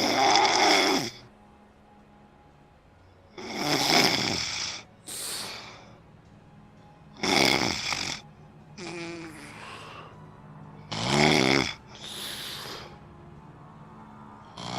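A sleeping person snoring: four loud snores about every three and a half to four seconds, each lasting about a second and followed by a softer breath.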